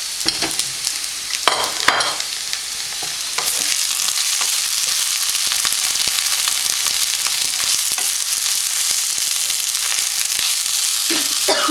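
Okra and spice powders frying in a pan, sizzling steadily while being stirred, with a few scrapes of the spoon in the first couple of seconds; the sizzle grows louder about three and a half seconds in.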